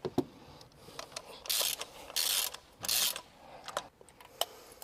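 Ratchet wrench clicking in three quick bursts on its back-strokes while a spark plug is being unscrewed, with a few light metallic clicks around them.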